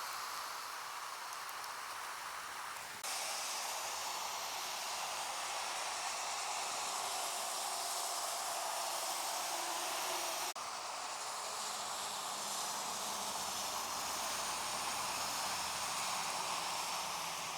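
Steady wash of water noise from rain and floodwater in a flooded street, with no clear rhythm or impacts; the sound changes abruptly twice, about three seconds in and about ten seconds in, as the shots change.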